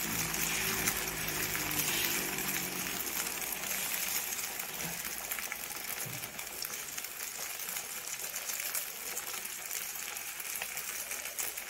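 Egg poli sizzling in oil on a hot iron tawa over a gas flame: a steady crackling hiss.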